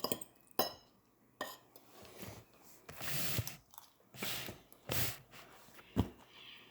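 Quiet eating and table sounds: a few light clicks of utensils or dishes and short rustling, chewing noises.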